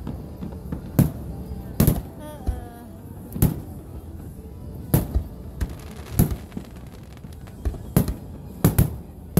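Aerial firework shells bursting in a display: about a dozen sharp bangs at uneven intervals, some in quick pairs.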